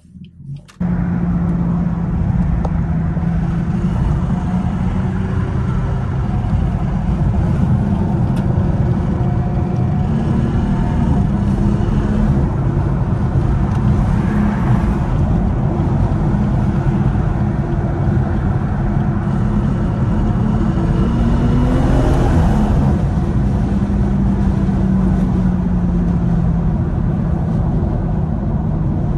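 BMW 440i's tuned B58 turbocharged inline-six running steadily under way, with road noise. It starts abruptly about a second in, and about 22 seconds in the engine note rises briefly as it revs, then settles.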